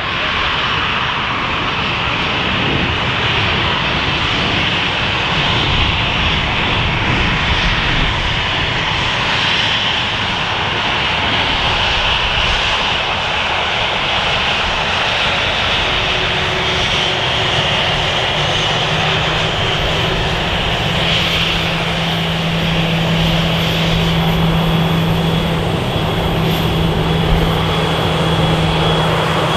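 Jet airliner engines running steadily on approach to land, with strong wind buffeting the microphone. A steady low hum joins about two-thirds of the way in.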